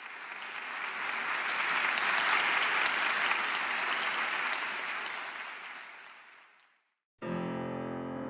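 Audience applause in a concert hall, swelling and then dying away as the conductor bows. About seven seconds in, a Steinway grand piano begins the accompaniment.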